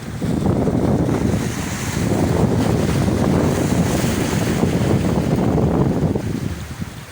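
Sea waves washing on the shore, with heavy wind buffeting the microphone as a low rumble; the wind rumble eases near the end.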